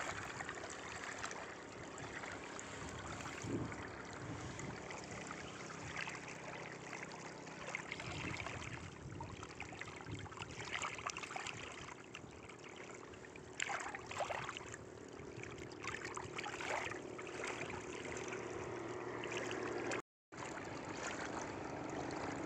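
Shallow water lapping and trickling at the bank, with a few short splashes about two-thirds of the way through as a hand lets a snakehead murrel go into the water.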